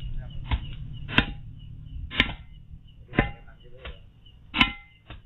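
A series of sharp knocks, roughly one a second, close to a CCTV camera's microphone, with faint voices behind.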